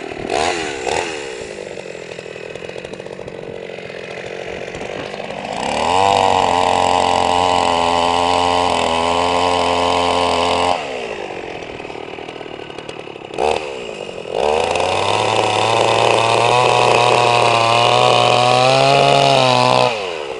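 Stihl two-stroke petrol chainsaw cutting through ice. It is revved hard under load twice, from about six seconds in for around five seconds and again from about fourteen seconds in until near the end. In between it drops back to a lower speed, with a short blip of the throttle.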